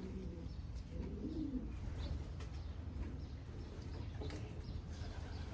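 Racing pigeons cooing, with a low, rising-and-falling coo about a second in, over a steady low rumble.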